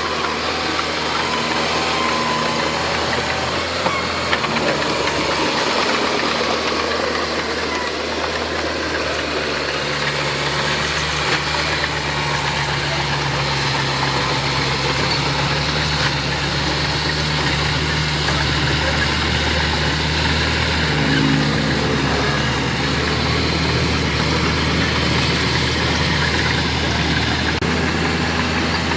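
Heavy diesel engine of road-building machinery, a bulldozer or dump truck, running steadily, its pitch rising and falling a little now and then.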